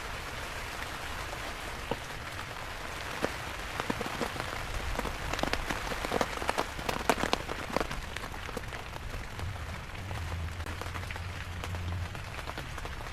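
Steady rain falling on an inflatable tent's fabric, heard from inside the tent. A flurry of sharp ticks comes through the middle.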